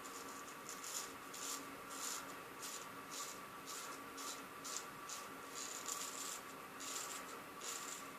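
Wilkinson Sword Empire hollow-ground razor blade scraping through lathered stubble in short, irregular strokes, about two a second, over a faint steady hum.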